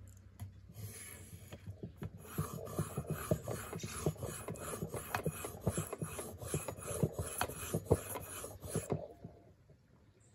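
Leatherman PST knife blade being stroked back and forth on a sharpening stone: a quick run of rasping, scraping strokes that stops shortly before the end.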